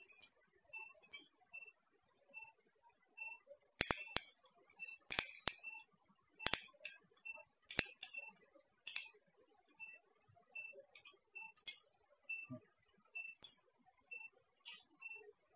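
Steel artery forceps clicking shut and open on their ratchets while the skin is clamped to crush the blood vessels. There are about nine sharp metallic clicks, several in quick pairs, loudest in the middle. A faint short high beep repeats about every half second to second behind them.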